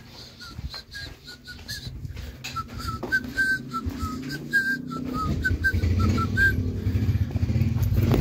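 A person whistling a tune in short, quick notes that hop up and down in pitch, for about the first six and a half seconds. A low rumble builds up from about five seconds in.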